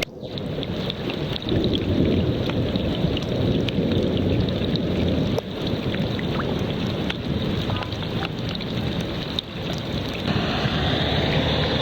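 Wind buffeting the microphone outdoors after a thunderstorm, a steady, uneven rumble with a few brief drops in loudness.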